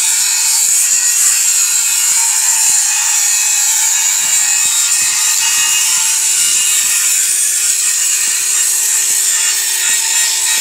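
Stick (arc) welding on steel: a steady, crackling hiss that carries on evenly without a break.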